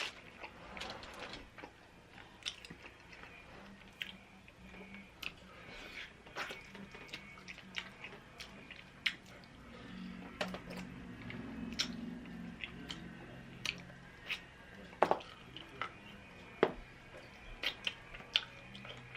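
A person chewing and eating close to the microphone, with wet mouth clicks and smacks at irregular intervals.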